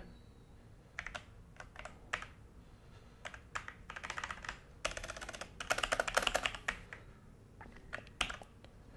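Typing on a Logitech G413 mechanical keyboard. Single key presses come first, then quick runs of keystrokes in the middle, and a few last taps near the end.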